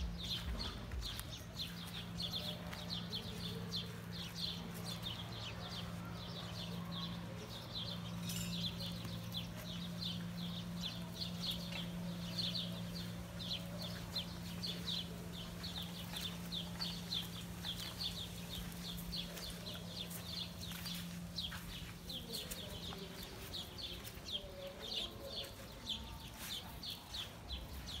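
Outdoor ambience of rapid, rhythmic high-pitched chirping from animals, many pulses a second without a break. Under it runs a steady low hum that fades out about 23 seconds in.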